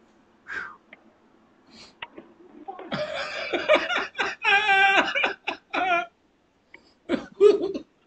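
A man laughing loudly and heartily, starting about three seconds in and lasting about three seconds.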